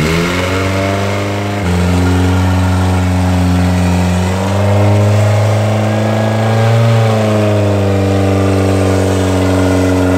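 Mazda Miata's four-cylinder engine running at a high idle on its first start after a full rebuild, its speed stepping up and wandering up and down a few times.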